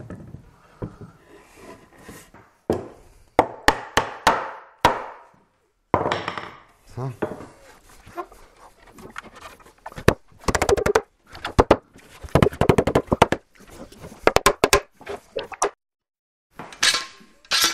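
Spruce boards knocking and clattering against each other and the bench as glued finger-jointed shelf parts are fitted together: several clusters of sharp wooden knocks, the densest run around the middle.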